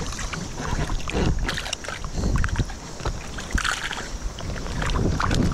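River water rushing and splashing, with wind buffeting the microphone and scattered small splashes and clicks.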